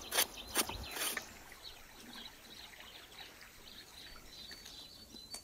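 A large knife blade scraping singed hair off a cowhide sack, a few quick strokes in the first second. After that only faint ambience with a few soft bird chirps near the end.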